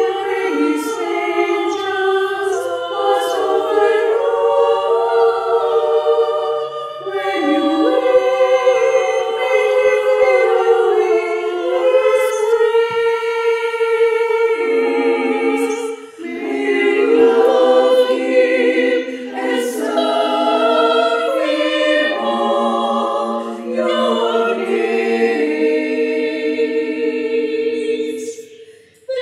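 Women's choir singing in several-part harmony, long held notes moving from chord to chord. There is a short break for breath about sixteen seconds in and another just before the end.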